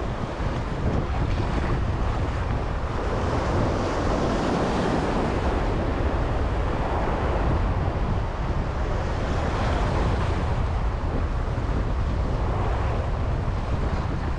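Sea waves washing against a jetty, with wind blowing across the microphone as a steady low rumble; the wash swells and fades every few seconds.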